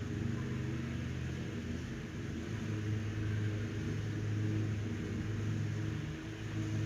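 A steady mechanical drone with a low, even hum, like a motor or fan running continuously, with no distinct events.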